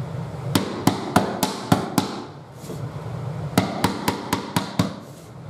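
Light taps struck on a metal flooring pull bar hooked over the end of a laminate plank, drawing the plank tight into its joint. Two quick runs of sharp taps, about four a second, with a pause of about a second and a half between them.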